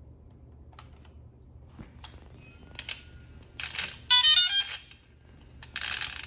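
DJI Phantom 3 Pro powering up: a quick run of stepped electronic beeps, rising and falling in pitch, about two-thirds of the way in, followed by a steady hiss.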